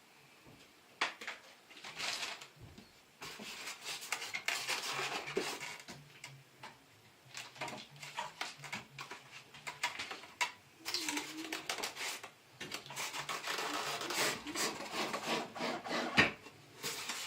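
A miter saw being lifted out of its packaging: irregular rubbing and scraping of packaging, with scattered knocks and one sharp knock near the end.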